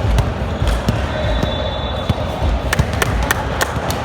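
Basketball being dribbled on a court floor, a run of low thuds, with a few sharp clicks and squeaks in the second half.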